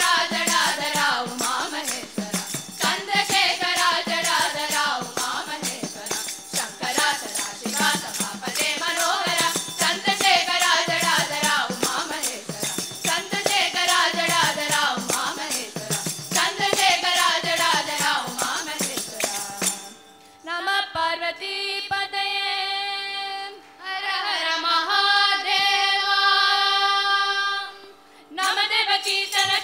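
Girls' chorus singing a Hindu devotional bhajan in unison, with hand-drum and jingling percussion accompaniment. About twenty seconds in, the percussion drops out and the voices hold long, steady notes, with a few short breaks between phrases.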